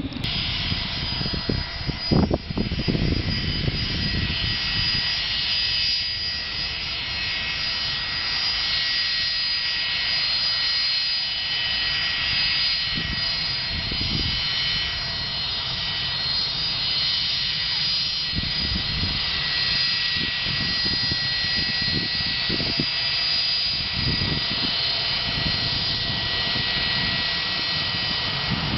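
Jet engines of a Gulfstream business jet taxiing at low power: a steady high whine over a low rumble.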